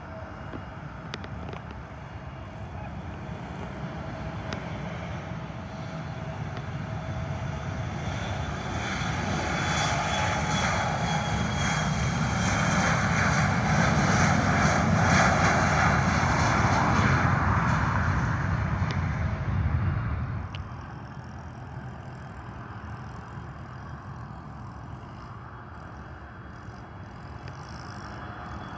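An airplane's engines growing steadily louder as the aircraft passes close, a broad rumble and hiss, then dropping away suddenly about twenty seconds in to a quieter steady background noise.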